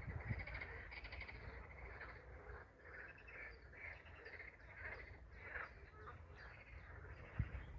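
Faint chorus of many small animal calls: short chirps repeating closely over one another, over a low rumble.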